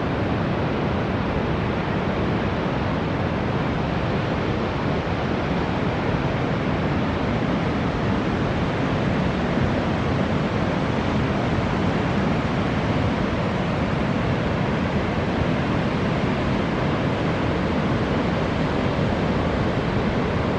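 Pacific Ocean surf breaking on a beach: a steady, unbroken wash of noise.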